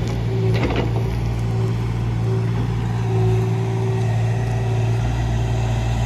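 Kubota KX040-4 mini excavator's diesel engine running steadily under work, with a higher hydraulic whine that comes and goes as the boom and bucket move. A brief clatter of dirt and roots comes shortly after the start.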